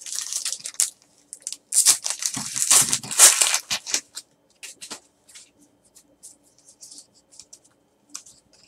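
Foil wrapper of a Donruss baseball card pack torn open and pulled off by hand, crinkling loudest in the first four seconds. After that come softer rustles and taps as the cards are slid out and handled.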